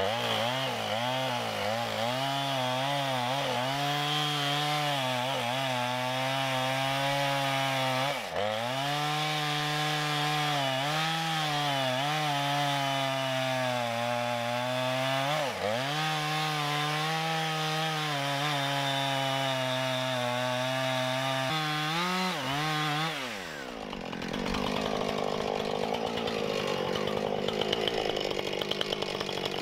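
Two-stroke gas chainsaw cutting into a yellow pine trunk at full throttle, its pitch dipping briefly twice as the bar loads up. About three-quarters of the way through, the throttle is let off and the engine note falls away to a rougher, pulsing idle.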